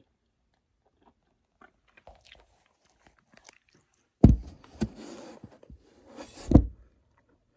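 Faint chewing and mouth clicks from someone eating, then two loud thumps about two seconds apart with rubbing between them as the phone recording it is picked up and handled.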